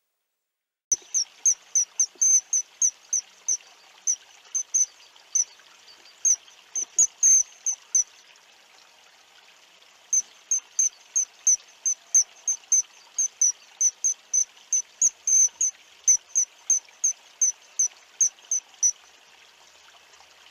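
Short, high-pitched chirping calls repeated about three times a second, with a pause of a couple of seconds about halfway through, over a steady rushing hiss like running water.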